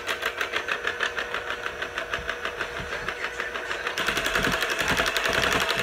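Electric hand mixer running, its beaters churning flour into batter in a stainless steel bowl with a fast, even rattle over a steady motor hum. It gets louder about four seconds in.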